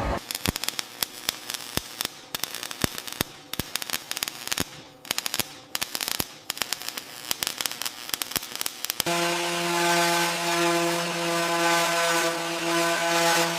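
Workshop tool noise: dense, irregular clicking and scraping for about nine seconds, then a power tool starts abruptly and runs with a steady whine.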